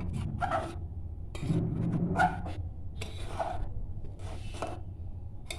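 Spoon or spatula scraping around the sides and bottom of a pot of boiling milk in a run of short strokes, pulling the set cream back into the milk so it doesn't stick, over a steady low hum.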